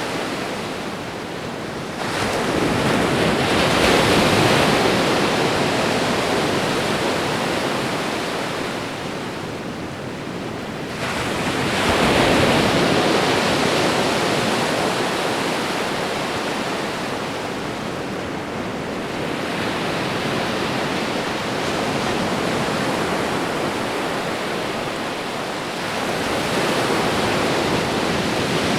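Ocean waves washing onto a shore: a continuous surf noise with waves surging in three times, about 2, 11 and 26 seconds in, each rising quickly and then slowly fading.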